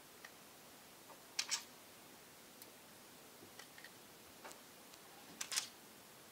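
Scattered light clicks and ticks of a precision screwdriver and tiny metal screws against a Sony Vaio F series laptop's plastic bottom case while its screws are taken out, the sharpest coming as quick double clicks about a second and a half in and again near the end.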